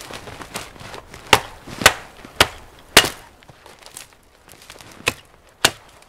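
Dry dead spruce branches snapping as they are broken off a fallen spruce: about six sharp cracks at uneven intervals, the loudest about a second to three seconds in, two more near the end.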